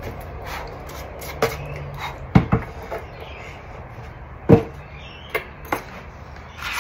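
Scattered knocks and clicks of a pine box and its small metal hinges being handled and set in place, the loudest two about two and a half and four and a half seconds in, over a faint low hum.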